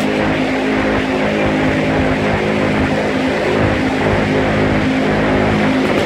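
Many machine guns on the firing line firing at once in sustained automatic fire, the shots running together into one loud, unbroken din with a steady buzzing tone in it.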